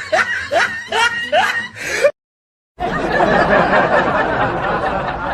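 Laughter sound effects. First a person laughs in short, repeated rising 'ha' syllables, about two a second. After a moment of dead silence about two seconds in, a denser stretch follows that sounds like several voices laughing at once.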